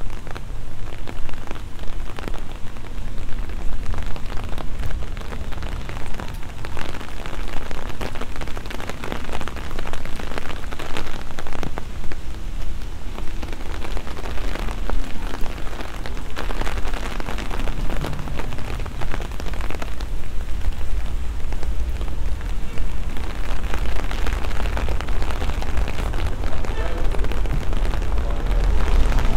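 Steady rain falling on stone steps and paving, a dense crackle of close raindrops.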